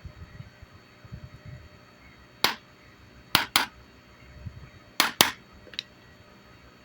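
Sharp knocks as the housing parts of a BLDC ceiling fan motor are tapped and fitted together during reassembly: a single hit about two and a half seconds in, two quick pairs of hits, and a faint last tap, over low handling noise.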